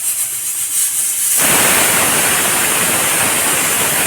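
Pressure cooker whistling: steam blasts out of the weight valve with a loud hiss, which about a second in suddenly grows louder and fuller. The cooker has come up to full pressure on a high flame.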